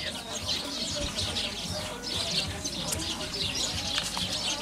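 Many small birds chirping in a busy, continuous chatter.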